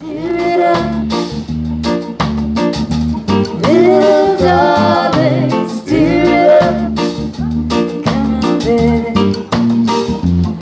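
Live reggae band playing: drum kit, bass and keyboard with a woman singing the melody into a microphone. The music starts abruptly at the beginning.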